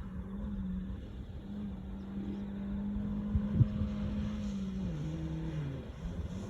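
Vehicle engine held at steady revs while doing doughnuts on wet grass, with a low rumble underneath. About five seconds in, the revs drop.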